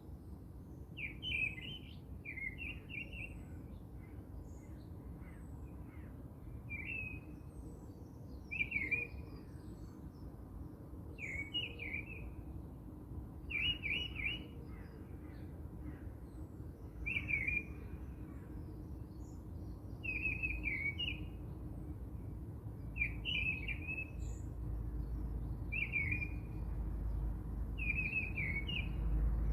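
A bird calling over and over, a short chirping phrase every two to three seconds, over a low steady rumble that grows louder near the end.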